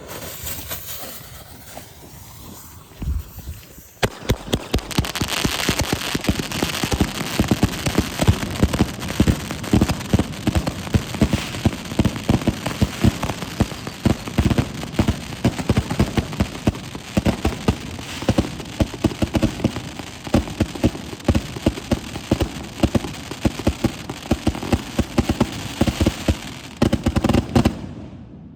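A 100-shot 'Wild Dragon' consumer firework cake firing a fast, continuous barrage of cracks and pops for about 24 seconds, then stopping suddenly. It is preceded by about four seconds of quieter hissing with a single thump.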